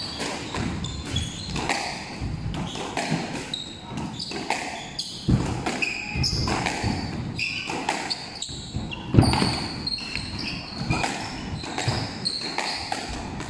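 Squash rally: rackets striking the ball and the ball hitting the walls, with two hard hits standing out about five and nine seconds in. Many short, high squeaks of shoes on the wooden court floor run between the hits.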